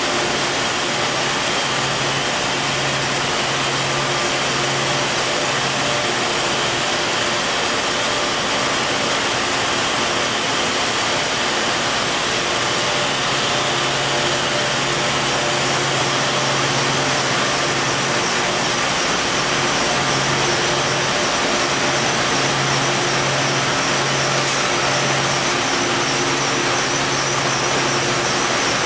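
Steady drone of plastic-bag factory machinery, the film extrusion and winding lines running: a constant hiss with a low hum that fades out and back in a few times.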